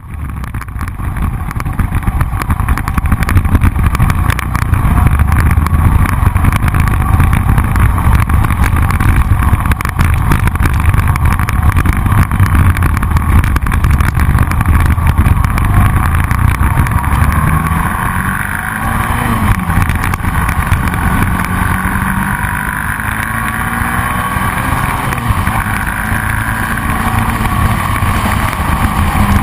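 Motorcycle riding at road speed, heard from a handlebar-mounted camera: heavy wind rumble on the microphone over the engine's steady running. Past the midpoint the engine pitch rises and then falls once.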